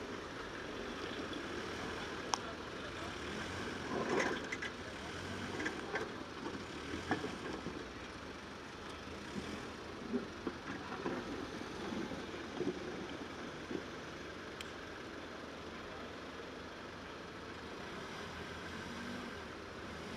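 Forklift engine running steadily, with scattered knocks and clanks, a cluster of them about four seconds in.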